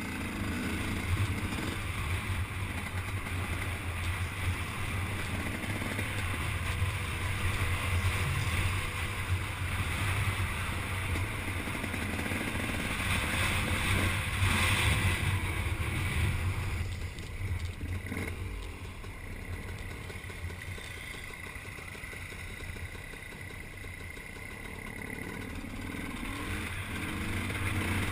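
Dirt bike engine running under way on a trail ride, steady for most of the time; it eases off about two-thirds of the way through and picks up again near the end.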